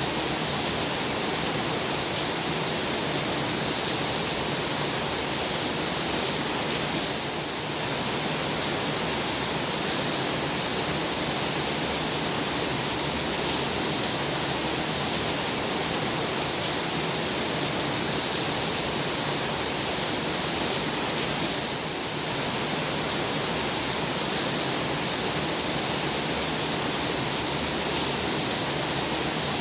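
Heavy rain falling steadily, a dense even hiss, with two brief slight dips in level.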